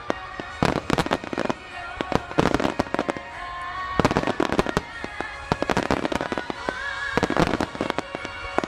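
Finale of a fireworks display by Ina Kako (Horiuchi Enka): aerial shells and crossing comets going off in rapid clusters of sharp bangs and crackles, with music playing underneath.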